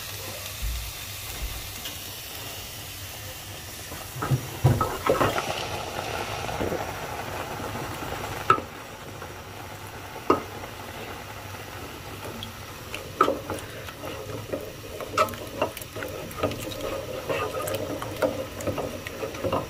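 Wooden spoon stirring oat porridge in an aluminium pot as milk is poured in, the spoon knocking and scraping against the pot now and then, over a steady hiss.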